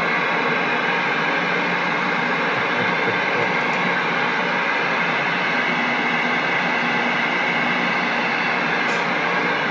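Galaxy CB radio's speaker giving out steady static, a hiss with a few faint humming tones running through it.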